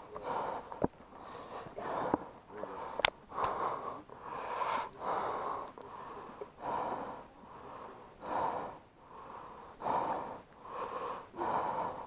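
Heavy, rhythmic breathing close to the microphone, in and out about once a second, with three sharp cracks in the first three seconds.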